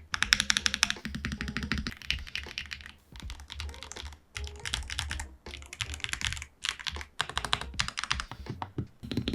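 Fast typing on budget pre-built mechanical keyboards, a rapid stream of key clacks. It comes in short runs of about a second each, broken by brief pauses, and the tone changes from one run to the next.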